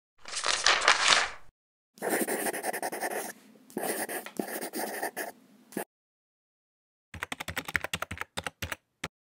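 Sound effects for an animated drawing intro: a short scratchy swish, then about four seconds of scratchy pencil-on-paper scribbling, then a quick run of typewriter key clicks, about ten a second, ending in a few single clicks.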